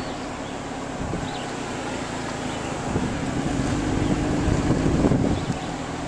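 A vehicle engine running at low speed, with wind rumbling on the microphone. It grows a little louder a few seconds in.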